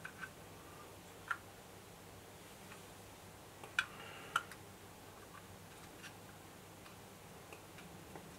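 Light clicks and taps of a plastic model train vehicle and its parts being handled on a wooden table. A few sharp clicks stand out, the loudest pair a little under a second apart near the middle.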